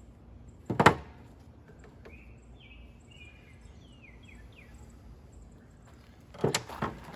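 A sharp thump or knock about a second in, then a bird singing a short run of quick, falling whistled notes, and a couple of wooden knocks near the end.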